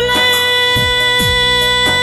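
Background song music: a long held melody note over a drum beat whose strokes drop in pitch.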